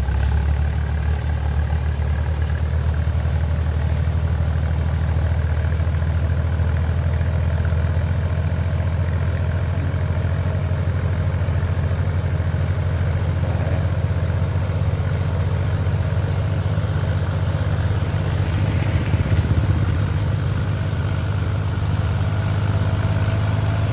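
Iseki 3510 tractor engine running steadily under load as the tractor, on cage wheels, drags a leveling board through flooded paddy mud; a low, even drone with a slight swell about three quarters of the way through.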